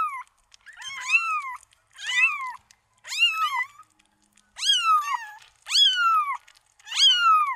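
Kitten mewing over and over: about seven high-pitched mews, roughly one a second, each rising and then falling in pitch.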